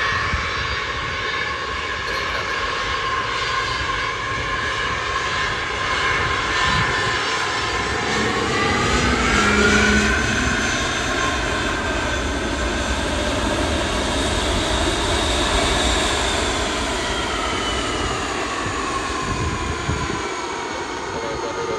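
Wide-body jet airliner's engines whining and rumbling steadily as it passes close by. The whine rises in pitch about eight to ten seconds in, then slides slowly down as the jet moves away.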